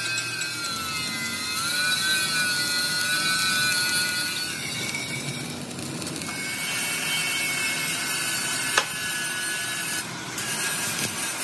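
Stick (shielded metal arc) welding on steel plate: a steady crackling sizzle from the electrode arc, with a thin, wavering whine over it and one sharp click near the end.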